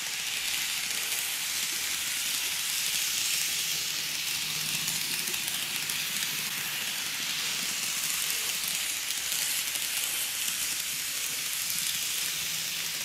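KATO N-scale 211 series electric multiple unit model running on its track: a steady hiss of wheels rolling on the rails, with a faint motor hum that swells about four seconds in and again near the end.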